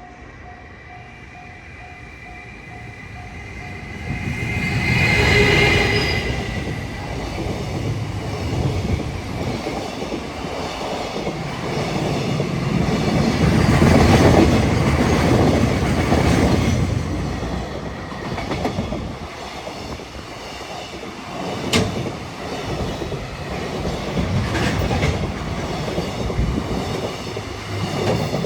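Freight train hauled by an EF210 electric locomotive passing a level crossing, with the crossing alarm pulsing at first. The locomotive comes by loudest about five seconds in, then the wagons run past in a long rumble with clicking as the wheels cross rail joints.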